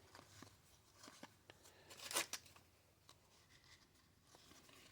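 Baseball cards being handled and slid off a pack stack: faint small ticks and one brief papery swish about two seconds in.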